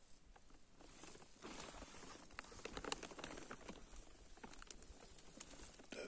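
Faint, irregular crackling and rustling of dry grass and leaves as someone moves slowly through undergrowth.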